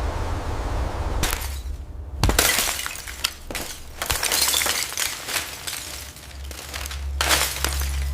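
Glass breaking and shattering in several crashes, starting about a second in after a steady hiss.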